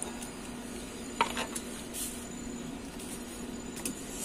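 Portable butane gas stove burning under a pan of frying oil: a steady low hum with a faint hiss, broken by a few sharp clicks and knocks about a second in and again near the end.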